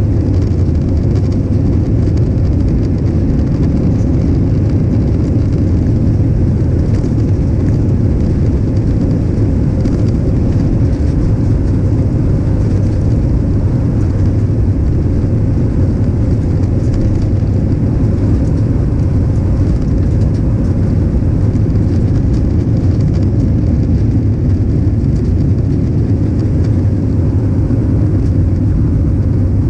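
Airbus A320's jet engines at takeoff thrust, heard inside the cabin by a window over the wing: a loud, steady, deep noise through the takeoff roll and lift-off.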